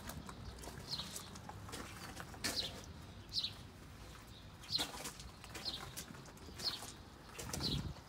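Slow footsteps crunching on gravel, about one step a second.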